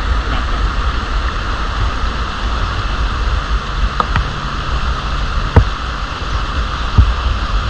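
Stream water rushing below a small dam, a steady hiss with a low rumble, broken by a few sharp knocks, the loudest about five and a half and seven seconds in.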